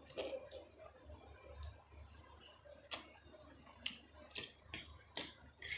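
Close-miked eating: wet mouth clicks and smacks, faint at first, then sharper ones coming about every half second in the second half.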